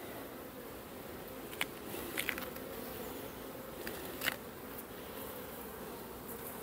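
Honeybees buzzing steadily around an opened hive and a frame of brood, with a few light clicks about a second and a half, two, and four seconds in.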